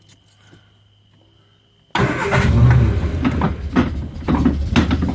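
1970 Triumph Spitfire's four-cylinder engine, exhausting through tubular headers, starting suddenly about two seconds in after a few faint clicks, then running unevenly. It is barely idling because the throttle linkage to the gas pedal is disconnected.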